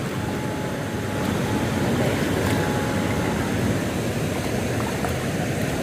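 Steady rushing noise of flowing stream water around the net and feet, even throughout, with a faint thin whine in the first few seconds.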